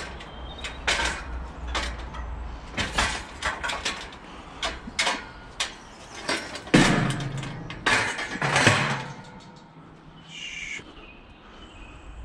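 Scrap being handled and moved: a run of knocks and clanks, with two heavier thumps about seven and eight and a half seconds in, and a brief high-pitched squeak near the end.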